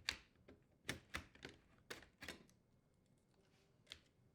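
Light clicks and knocks of the old metal dishwasher door hinge as it is worked free and lifted off the frame. There are about seven irregular taps, bunched in the first two and a half seconds, with one more near the end.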